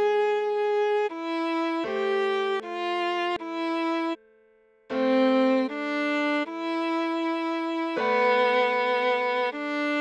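Viola playing a slow melody of long bowed notes, changing about once a second, with a lower note held beneath for stretches and a short break about four seconds in.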